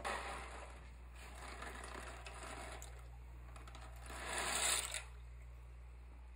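Dry penne pasta rattling and sliding out of a cardboard box into a pan of water. The pour is loudest for about a second, around four seconds in.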